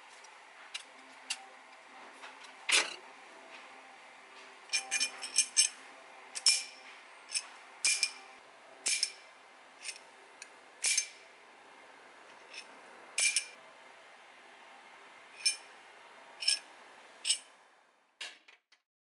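Irregular sharp metal clinks, each with a short ring, as the steel parts of a combined drawbar wrench and spring-loaded sliding hammer tool knock together while it is handled.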